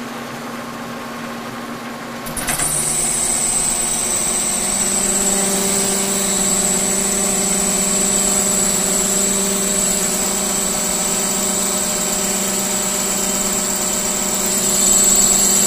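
K&T mill rigged as a lathe, its spindle running, then from about two seconds in a carbide insert biting into a heavy 50-thousandths cut on Aquamet 22 stainless shaft, giving a steady high-pitched singing tone over the machine's hum: harmonic chatter in the cut.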